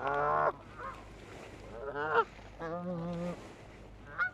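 Geese honking close by: a loud call at the start, two more around two to three seconds in, and a short one near the end.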